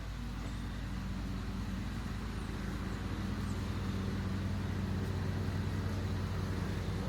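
A steady low engine hum that grows slowly louder.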